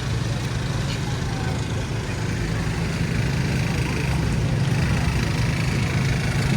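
City street traffic: motor vehicle engines running with a steady low hum.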